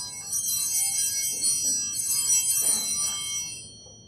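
Altar bells (sanctus bells) shaken twice, each time a bright jangle of several small bells, then ringing away to nothing near the end. They are rung at the elevation of the consecrated host during the consecration at Mass.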